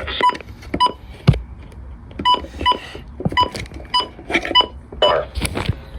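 Weather radio beeping: about eight short electronic beeps at one pitch, in irregular pairs, mixed with sharp clicks and a low knock about a second in.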